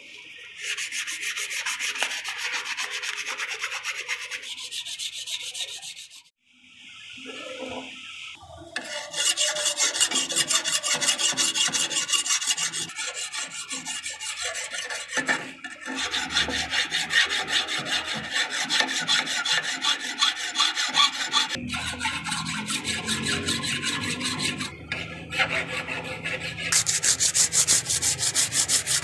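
Sandpaper being rubbed by hand over the rusty steel blade of old tin snips clamped in a vise, fast back-and-forth scraping strokes that scour the rust off. The rubbing comes in several runs with short breaks between them.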